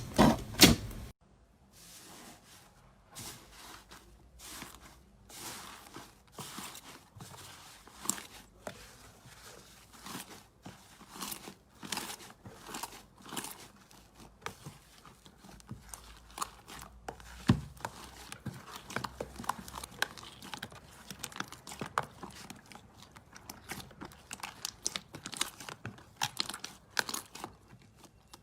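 Slime being handled, giving a stream of short, irregular crackles and small pops. A few louder clicks open it before the sound drops suddenly about a second in.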